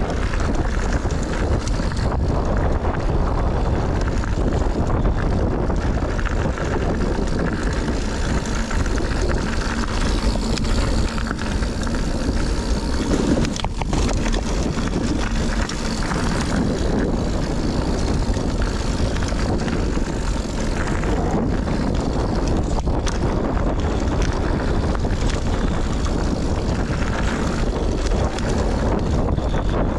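Steady wind rushing over an action-camera microphone and mountain-bike tyres rolling over a dirt trail during a descent, with light clicks and rattles from the full-suspension bike.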